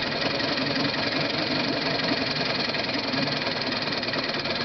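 1956 Hiawatha (Scott-Atwater-built) 5 hp two-stroke outboard motor running steadily.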